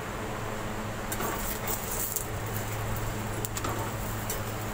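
Metal slotted spatula scraping and clicking against a tawa griddle while working a paratha: a crackly scrape about a second in and a few sharp clicks later, over a steady low hum.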